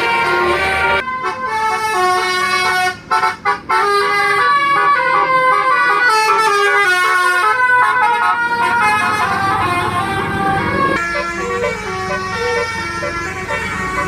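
Bus's multi-note musical air horn (telolet basuri) playing a tune in quick stepped notes, with a brief break about three seconds in. A bus engine rumble grows under the horn in the second half.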